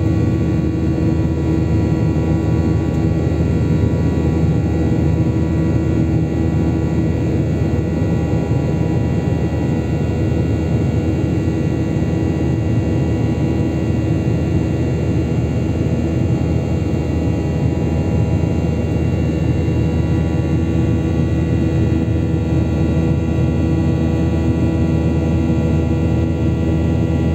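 Steady cabin noise inside an airliner in flight: the drone of the engines and rushing air, with several steady humming tones over it and no change in level.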